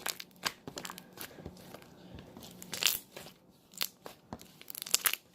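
Homemade shaving-cream slime squeezed and poked by hand, giving a run of sharp clicks, pops and crackles, thickest near the middle and again near the end.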